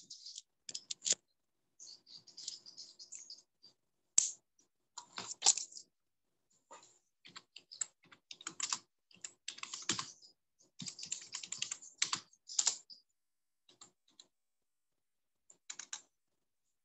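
Computer keyboard typing: irregular runs of key clicks in short bursts with pauses between them.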